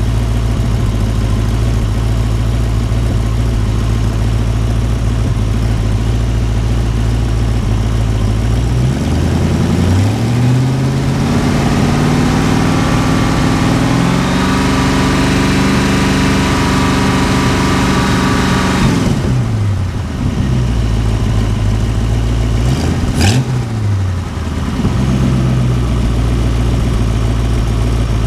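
Ford 289 small-block V8 idling. About a third of the way in it is revved up and held at a raised speed for several seconds, then drops back to idle, followed by one quick blip of the throttle. The engine is running a little lean, with an air/fuel ratio in the mid-to-high 14s.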